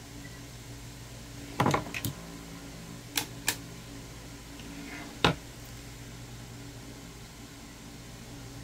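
Push-button switch on a camping searchlight flashlight clicked about five times at uneven intervals, switching the light through its modes, over a steady low hum.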